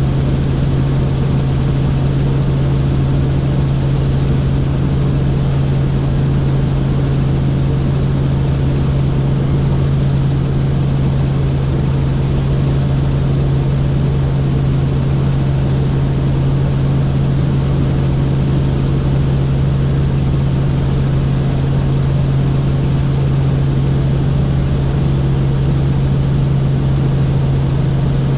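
Helicopter in steady flight: a loud, unchanging drone with a strong low hum.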